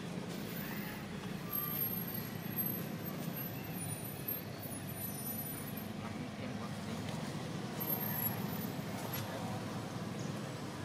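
Steady low rumble of a motor vehicle engine running, with faint thin high-pitched tones now and then above it.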